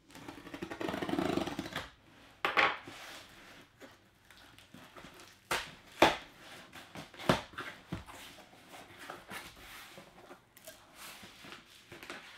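A folding knife slitting the packing tape on a cardboard box with a scratchy scrape lasting under two seconds, then knocks, taps and rustles as the cardboard box is handled and its flaps pulled open.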